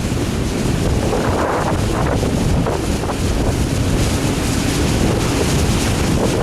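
Strong wind buffeting the microphone: a loud, steady rumble of wind noise with small changes in strength.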